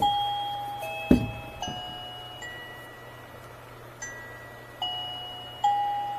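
Doorbell chime playing one of its ringtones: a short tune of bell-like electronic tones, each struck and fading away. There is a sharp click about a second in.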